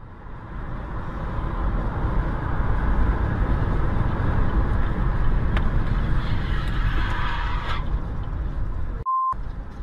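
Steady road and wind noise from a vehicle travelling at highway speed, recorded by its dash cam. It builds over the first few seconds and eases off near the end. A short beep comes about nine seconds in.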